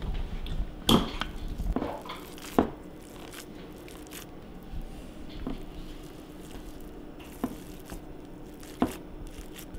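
Raw bacon strips being peeled apart and laid into a glass Pyrex loaf dish: soft wet peeling and squishing, with a few short sharp taps, the loudest about a second in.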